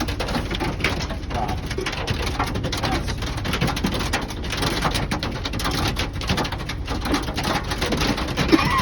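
Hailstones pelting a van's roof and body in a dense, irregular patter of sharp hits, heard from inside the cabin.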